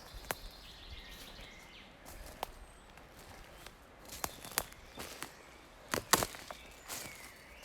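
Footsteps on a forest floor, irregular crunching steps with the loudest pair about six seconds in. Faint bird calls sound behind them.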